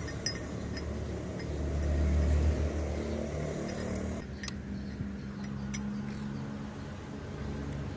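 Light metallic clinks of small metal parts being handled and fitted, a few scattered ticks, over a low rumble of nearby traffic that swells about two seconds in.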